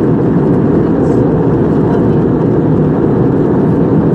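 Steady cabin noise inside a jet airliner in flight: an even, loud drone of engines and airflow, strongest in the low range, with no change in pitch.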